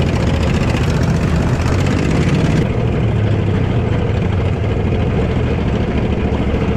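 Small off-road vehicle engine running steadily close up. A hiss layered over it cuts off about two and a half seconds in.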